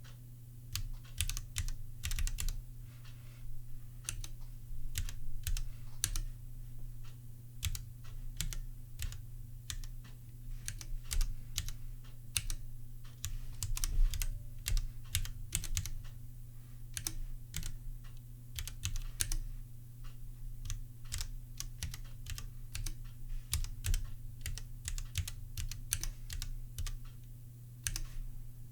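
Typing on a Bastard Charybdis Nano 3D-printed split ergonomic keyboard with Gateron Yellow linear switches: a fast, irregular stream of key clacks with a rattly sound, over a steady low hum.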